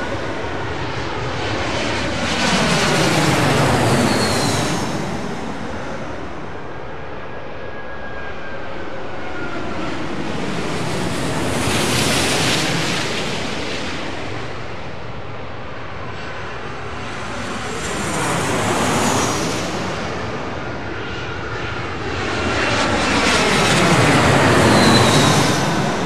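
Airliners coming in to land pass low overhead one after another, about four passes. Each engine noise swells to a peak and fades, with a whine that falls in pitch as the plane goes by.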